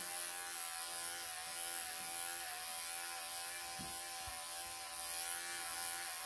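Cordless electric pet clippers running steadily as they clip matted fur from a Persian cat: an even motor hum with a high buzz over it.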